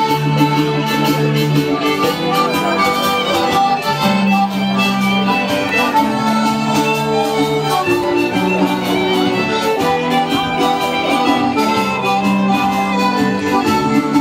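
A squeezebox band of accordions playing a traditional dance tune with a steady beat.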